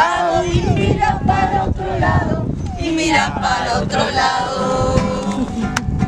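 A group of children and adults singing a song together, accompanied by a strummed acoustic guitar.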